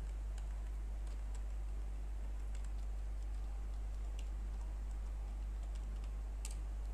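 Computer keyboard keystrokes: scattered, irregular light clicks of typing over a steady low hum.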